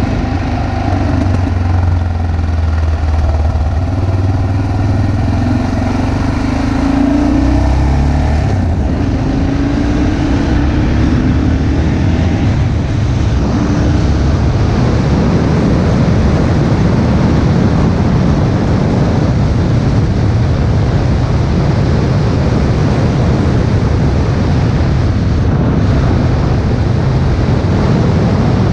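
Vehicle engine running while driving a winding road, its pitch rising and falling over the first eight seconds. After that, a steady wind rush on the microphone takes over and drowns the engine out.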